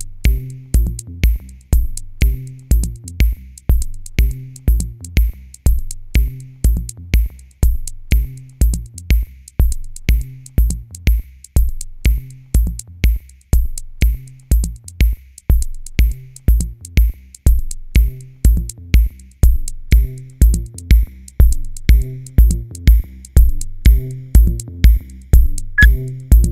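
Electronic background music with a steady drum-machine beat, a little over two kick hits a second, over a pitched bass line.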